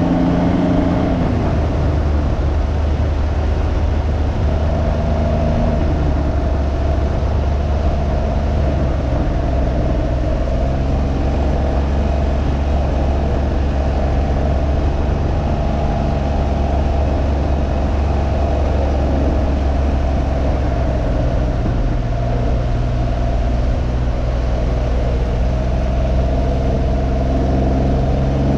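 Can-Am Ryker 900's Rotax three-cylinder engine running under way with wind noise over it. The engine note steps down and up in pitch a few times as the speed changes.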